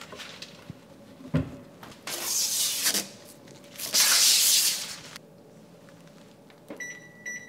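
Two hissing spray bursts, each about a second long, with a few light knocks, then an electronic appliance beeping twice near the end.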